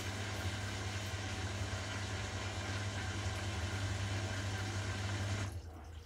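Beko WTKB4011W washing machine running mid-wash: a steady low hum with a rush of water, which cuts off suddenly about five and a half seconds in.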